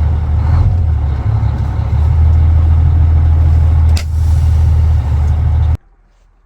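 Heavy diesel engine of a 2000 International Paystar 5500i truck running under way, a steady low drone, with one short knock about four seconds in. The sound cuts off abruptly near the end.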